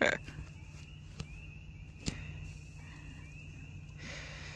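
Light clicks and knocks of metal tongs at a charcoal grill as meat is laid on the coals, the sharpest right at the start, over a steady low hum and faint high chirps repeating about twice a second. A soft even hiss rises about four seconds in.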